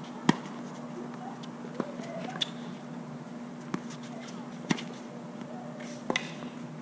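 Tennis rally on a hard court: the ball is struck by rackets and bounces, six sharp pops spaced about a second apart, the loudest just after the start. A steady low hum runs beneath.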